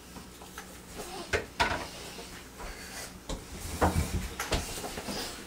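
A handful of short, scattered knocks and clicks from objects being handled in a small room; the loudest come a little before and after the middle.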